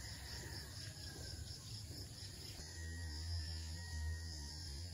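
Faint steady chirring of insects in riverside vegetation; a low hum joins about two and a half seconds in.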